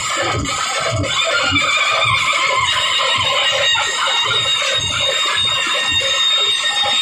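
Loud, amplified live band music: a drum beaten with sticks keeps a fast, steady beat under a high, wavering melody.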